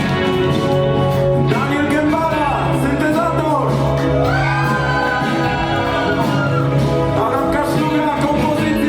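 A live band playing with a singer, recorded from the audience in a large hall: steady bass notes under a sung melody that slides up and down.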